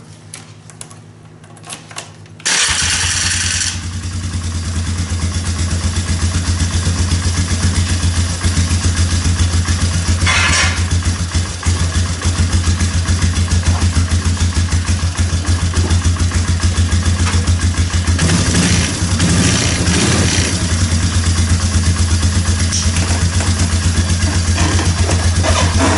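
Polaris Trailboss 330 ATV's single-cylinder four-stroke engine cranking and catching about two and a half seconds in, then running steadily with an even pulsing beat. It now keeps running after a carburetor cleaning for its run-only-on-choke fault.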